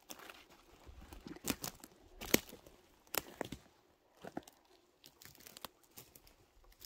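Dry twigs and forest-floor litter crunching and snapping in irregular sharp cracks, the loudest a little past two seconds in.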